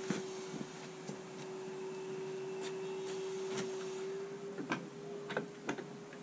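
Footsteps on paving, then keys and a lock clicking and rattling at a wooden shed door as it is unlocked, a handful of short sharp clicks. A steady faint hum runs underneath.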